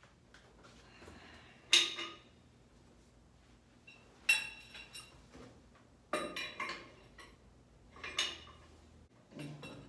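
Steel parts of a Teeter 900LX inversion table clanking as they are handled and fitted: about five sharp metal knocks with a brief ring, a couple of seconds apart, the loudest about two seconds in.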